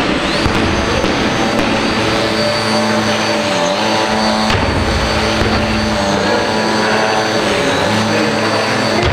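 Electric motor and propeller of a small foam indoor aerobatic model airplane running at a steady pitch while it hangs nose-up in a hover, the pitch dipping briefly twice as the throttle is eased.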